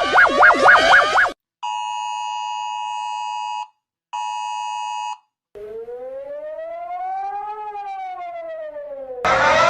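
A run of emergency-alert alarm tones. A fast warbling tone cuts off about a second in, then a steady electronic two-tone chord sounds twice, then a siren tone rises slowly and falls back. A louder rising siren starts near the end.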